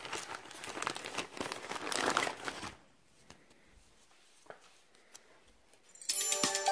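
Clear plastic bag of dog treats crinkling as it is handled, for about three seconds, then quiet with a few faint clicks. Music starts near the end.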